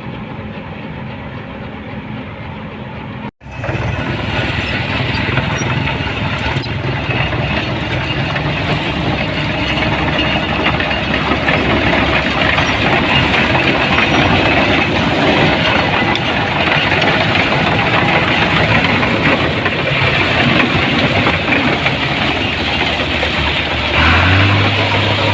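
Rice combine harvester running: a steady engine hum, then an abrupt cut about three seconds in to a much louder, noisier stretch of machine noise that carries on to the end.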